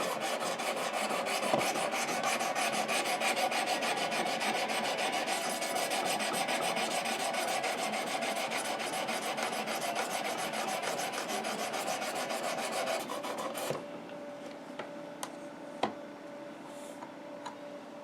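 Sharpening stone stroked rapidly back and forth along the steel edge of a Spyderco Native 5 knife, a steady rasping that works up a burr. The strokes stop about three-quarters of the way through, leaving a few light clicks.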